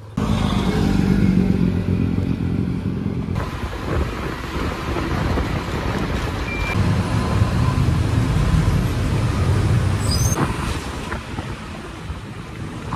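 Motor vehicle engine running with road and traffic noise, heard while riding in an open-sided vehicle through city streets. The sound changes abruptly about three seconds in, and there is a brief high squeak about ten seconds in.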